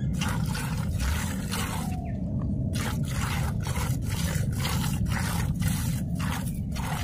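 Hand-milking a cow: milk squirting from the teats into a plastic bucket, a short hissing squirt about twice a second as the hands alternate, over a steady low rumble.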